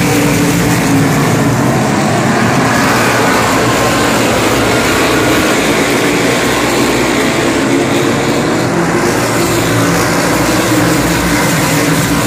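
A field of modified race cars running laps on a short oval, their engines a loud, steady drone as cars pass by.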